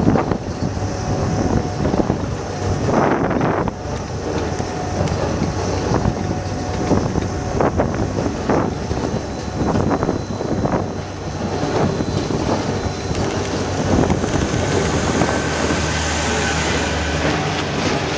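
Liebherr TA 230 articulated dump truck's diesel engine running steadily, with frequent clanks and rattles from the working machine.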